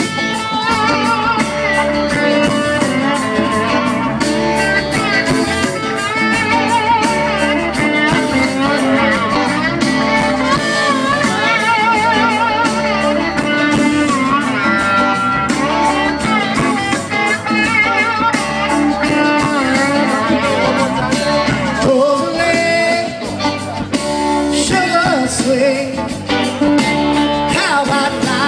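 Live rock band playing loudly over a PA, with electric guitars over a steady bass-and-drum pulse, heard from the audience.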